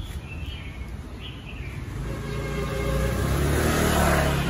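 A motor vehicle's engine approaching and growing louder over the second half, with a few short bird chirps in the first second and a half.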